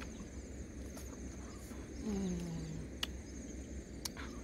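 Insects trilling steadily with a high, pulsing buzz, under close eating sounds: a short, slightly falling hummed 'mm' about two seconds in, then a couple of sharp mouth clicks from chewing roast duck.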